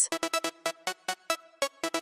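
Electronic dance background music: a quiet, sparse passage of short staccato synth notes, about five a second.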